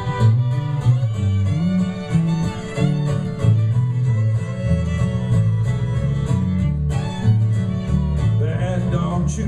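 Acoustic string band playing an instrumental break in a country-folk song: fiddle and acoustic guitars over a steady, walking bass line, with no singing.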